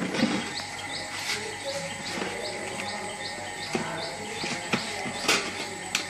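Refrigeration vacuum pump running steadily while it evacuates a refrigerator's sealed system, a continuous hum and whine. A bird chirps over it about twice a second, and two sharp clicks come near the end.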